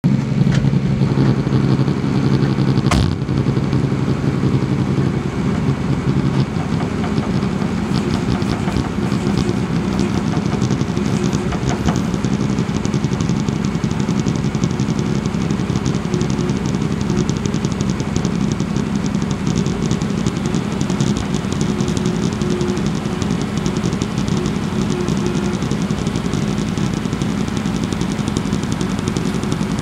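Heavy equipment's diesel engine running steadily, with a single sharp knock about three seconds in.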